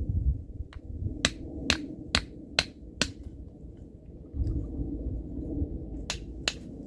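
A wooden baton striking the spine of a knife to split firewood (batoning), sharp knocks: five in a quick run at about two a second, then two more near the end.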